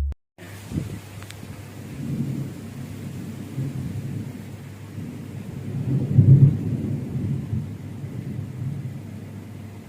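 Strong, gusty wind ahead of a rainstorm, with a low rumble that swells about six seconds in and then eases.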